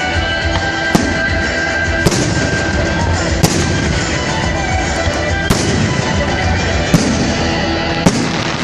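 Fireworks bursting overhead: six sharp bangs spread over about seven seconds, each with an echoing tail, over music playing throughout.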